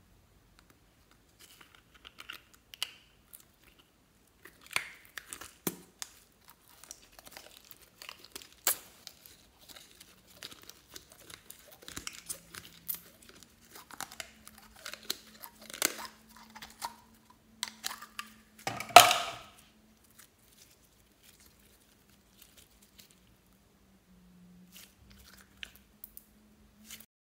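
Pink glitter slime handled by hand: sticky squelches, crackles and small pops as it is pulled from its plastic jar and stretched, with one loud squelch about two-thirds of the way through.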